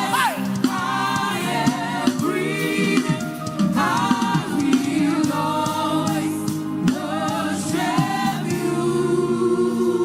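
Gospel worship music: a choir singing sustained phrases over steady held chords.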